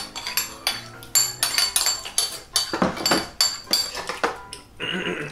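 Metal spoons and chopsticks clinking and scraping against bowls while eating: a quick, irregular run of sharp clinks.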